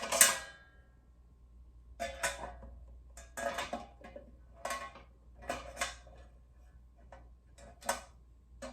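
Metal parts of a portable grill clanking and clattering as its legs are worked into place: a loud clank at the start, then about seven more irregular knocks and rattles.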